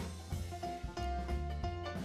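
Background music with a bass line, a drum beat and held instrument notes.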